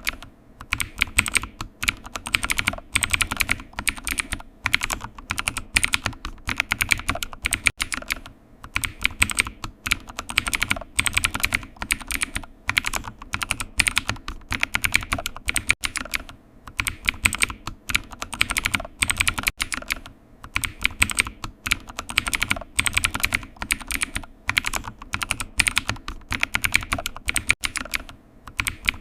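Typing on a computer keyboard: fast, steady runs of keystrokes broken now and then by brief pauses of under a second.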